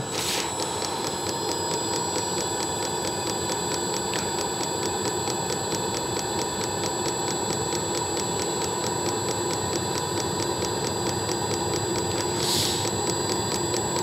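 Diesel air heater starting from cold: fast, even ticking from its fuel metering pump over the steady whir of the combustion-air fan, with no exhaust silencer fitted. A short hiss comes near the end.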